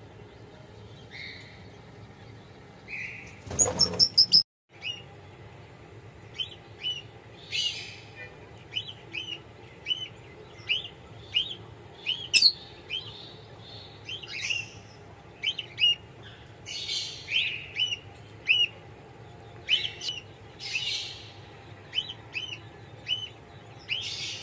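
Small birds chirping: short, sharp calls repeated about twice a second, with a few louder, rougher calls among them. Near the start, a loud run of rapid high-pitched notes cuts off suddenly into a brief silence.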